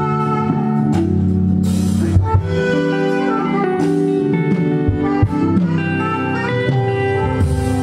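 Live band playing an instrumental passage: sustained guitar and keyboard-like notes over bass, with drum kit hits.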